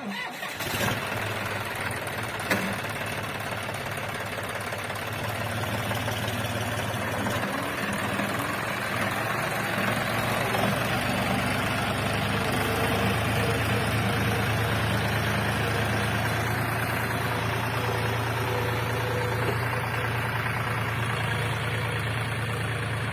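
John Deere 5036 D tractor's three-cylinder diesel engine running steadily, a little louder from about six seconds in, with a single short knock about two and a half seconds in.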